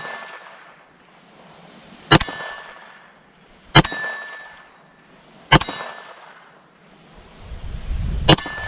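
Four 9mm pistol shots from a Canik TP9SFX, about one and a half to three seconds apart. Each shot is followed by the ringing clang of the steel silhouette target being hit.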